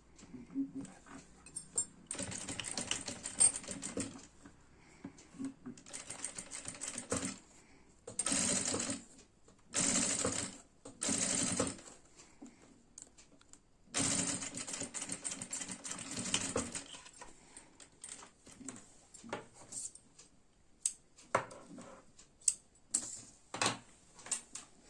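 Sewing machine stitching in several short runs of one to three seconds each, stopping and starting, followed by scattered short clicks.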